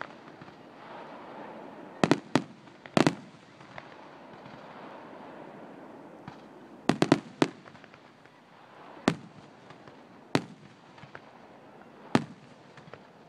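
Aerial firework shells bursting: sharp bangs, some in quick clusters of two or three, others single every second or two.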